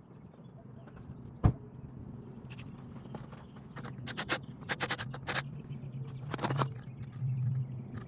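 One sharp metallic knock about a second and a half in, then a run of short clinks and knocks from tools and brake parts being handled, over a low steady hum.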